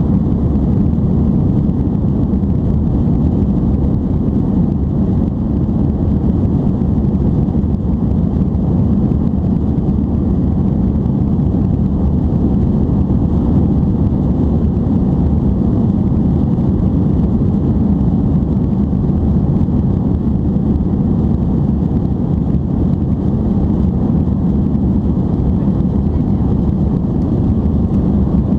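Steady cabin noise of an Airbus A310-325 climbing after takeoff: an even, low rumble of the jet engines and rushing air heard inside the cabin beside the wing.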